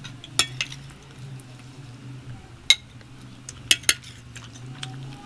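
Metal serving spoon scraping and clinking against a platter and small ceramic bowls as food is dished out: about five sharp clinks, the sharpest about two and a half seconds in, over a steady low hum.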